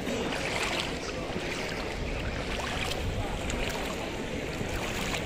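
Steady wind buffeting the microphone over shallow floodwater splashing as people wade through it.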